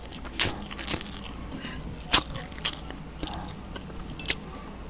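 Close-miked chewing of stir-fried rice noodles, with a sharp wet mouth click every second or so.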